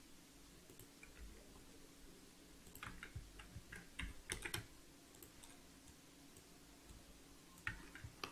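Faint computer keyboard keystrokes and clicks, in a cluster about three to four and a half seconds in and a few more near the end.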